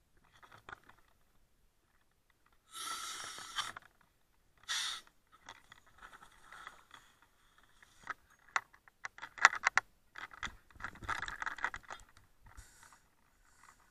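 Firefighter's gear clinking, scraping and rattling as he moves, with a rushing burst about three seconds in, a shorter one soon after, and a quick run of sharp clicks and rattles later on.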